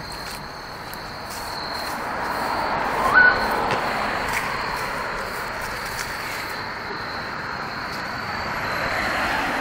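Road traffic passing, its tyre and engine noise swelling and fading twice, under a steady high-pitched cricket trill. A short rising chirp about three seconds in is the loudest sound.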